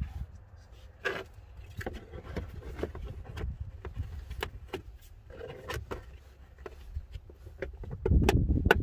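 Hands working a plastic fuse-box cover and wiring beside a car battery: scattered clicks, knocks and rustles of plastic and wire. A low rumble swells near the end.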